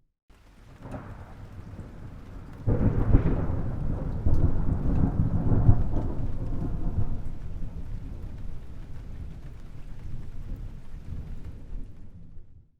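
A thunderclap: a low rumble builds, breaks into a loud crash about three seconds in, then rolls on and slowly fades over several seconds before cutting off suddenly near the end.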